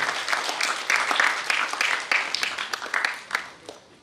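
Audience applauding, fading away over the last second.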